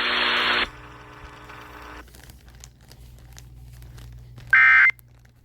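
Broadcast static hiss cuts off under a second in, leaving low hiss and hum. About four and a half seconds in comes a single short, loud screech of Emergency Alert System (SAME) digital data tones: the first of the three end-of-message bursts that close the alert.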